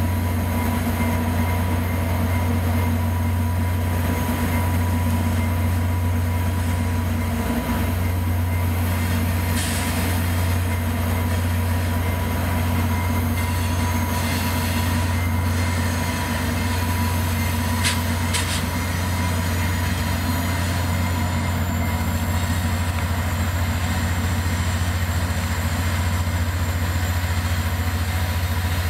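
Two VIA Rail F40PH-2 diesel-electric locomotives hauling a passenger train, running slowly with a steady low drone. A few brief high squeaks, typical of wheel flanges on a curve, come through around the middle.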